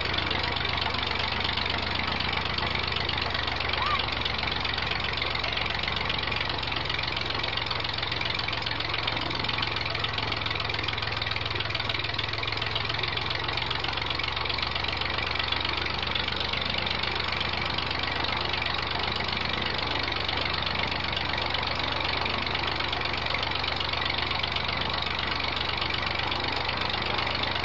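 An engine running steadily at an even speed, with no change in pitch or loudness.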